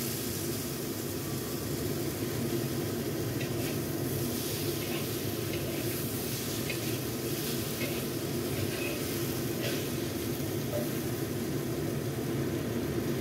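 Steamed eggplant and preserved mustard greens sizzling in oil in a wok, stirred and turned with a metal spatula, with faint scrapes here and there.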